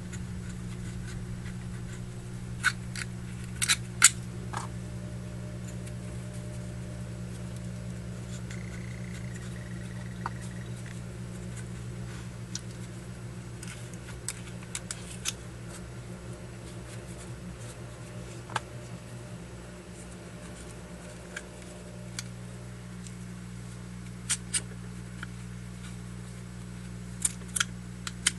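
Scattered small clicks and taps of a Zippo lighter's metal insert being handled as cotton stuffing is pressed back into it, over a steady low hum.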